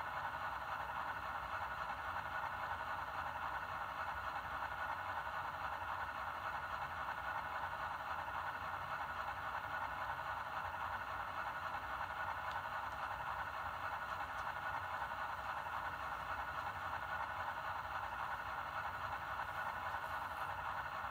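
Model Union Pacific diesel locomotive idling on its sound decoder: a steady diesel idle sound, thin and mid-pitched with little bass, coming from the model's built-in speaker.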